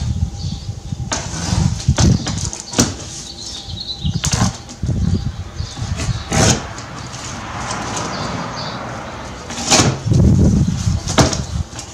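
A large cardboard shipping box being handled and opened: cardboard rustling and scraping as the flaps are pulled open, with scattered knocks and a few dull thumps.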